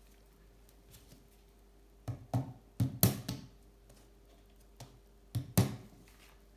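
Hands handling small brake-shoe parts: sharp clicks and knocks, one cluster about two seconds in and another about five and a half seconds in.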